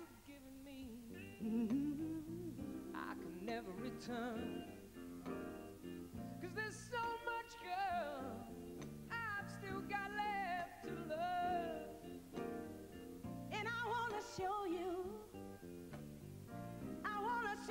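A male and a female singer trade wordless vocal runs and ad-libs over a live backing band in a soul-pop duet.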